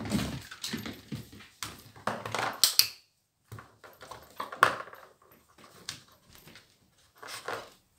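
A small dog's paws on a floor mat and a plastic toy knocking into a plastic bowl as the dog drops it in: scattered knocks and rustles, the loudest a sharp clatter a little before three seconds in and another near five seconds.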